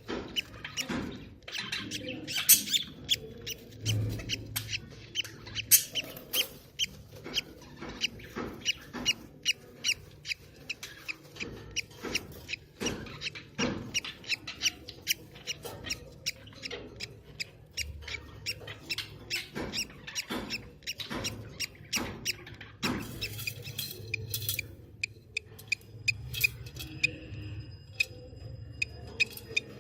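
Budgerigar chicks cheeping: a steady run of short, sharp peeps, two or three a second, with a few longer, higher calls near the end.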